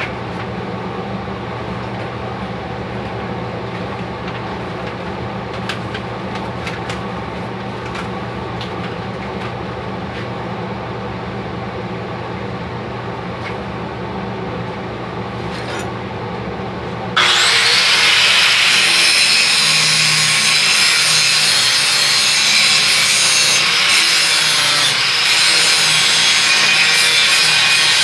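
A steady low hum, then about two-thirds of the way through an angle grinder starts grinding steel and runs on loudly, taking excess slag off a workpiece to clean it before welding.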